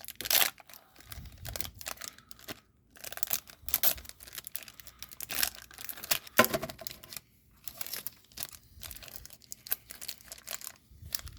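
A trading card pack's wrapper being torn open and crinkled by hand, in irregular crackles and tears.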